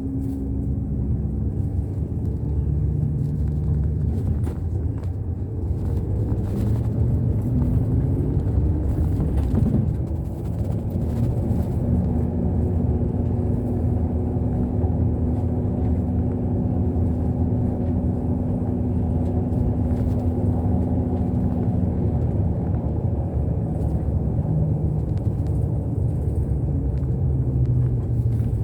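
A road vehicle on the move, heard from on board: a steady low engine and road rumble. The engine note shifts and the level dips briefly about ten seconds in, after which the hum holds steady.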